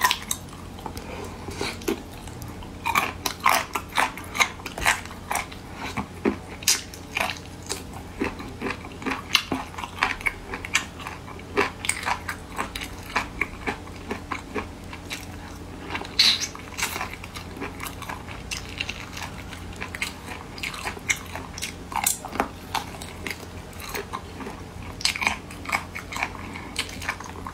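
A person biting and chewing Sichuan-pepper chicken feet: irregular short clicks and crunches, sometimes several a second, with a few louder bites scattered through.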